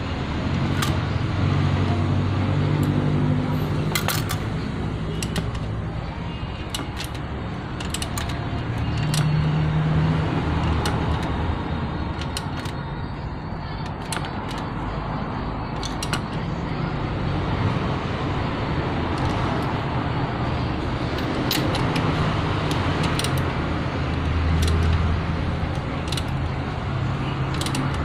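Scattered metallic clicks and clinks of a socket wrench on the spark plugs in the engine's plug holes, over a steady low vehicle rumble that swells and fades slowly.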